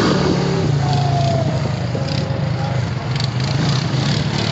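Honda Rancher ATV engine running steadily while riding a trail, with the rattle and rush of the ride over it.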